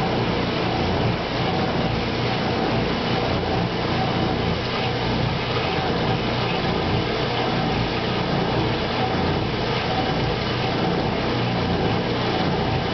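1957 Speed Queen top-loading washer filling for a wash: water pours steadily from the inlet into the tub of clothes over a constant low hum.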